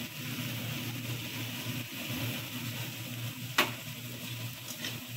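Soya chunks, onion, capsicum and green chillies sizzling in hot oil in a metal kadhai while a steel spatula stirs them. A steady hiss runs throughout, with one sharp metal clink of the spatula on the pan about three and a half seconds in and a couple of lighter scrapes near the end.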